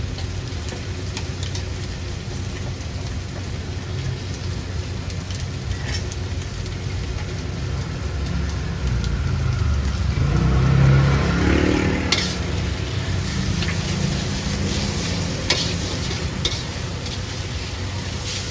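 Wide rice noodles sizzling in a hot wok over a steady low rumble, with a metal spatula scraping and knocking against the wok a few times in the second half. A louder rumble swells up about halfway through and fades.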